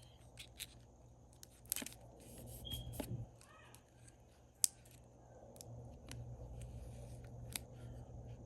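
Paper and tape being handled at close range: soft rustling and scattered light clicks, with one sharp click about halfway through.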